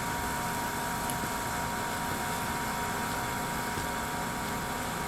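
Steady, even background noise with a faint constant high hum and no distinct events.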